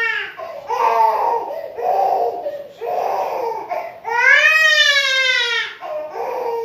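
A toddler crying: a few short, rough sobbing cries, then one long wail about four seconds in that rises and falls in pitch.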